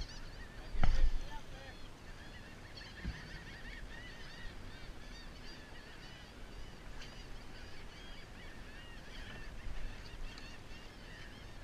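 A flock of seabirds calling, many short overlapping cries throughout. A loud thump about a second in, and a smaller knock a couple of seconds later.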